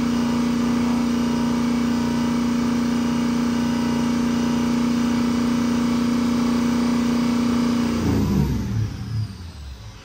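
Ford 6.0 Powerstroke V8 turbo-diesel held at a steady high rev of about 2000 rpm. About eight seconds in, the throttle is let off and the engine winds down to idle. The engine is at full operating heat and is being revved to try to bring on a hot stall, which the mechanic suspects comes from a failing IPR valve.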